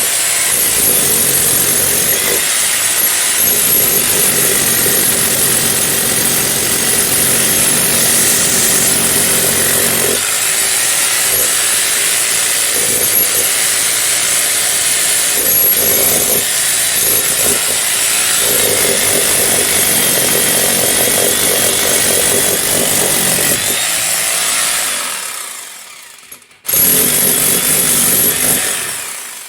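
Electric hammer drill breaking into a wall, running hard and steadily with a high whine. It dies away about 25 seconds in, cuts out, then runs again briefly and stops near the end.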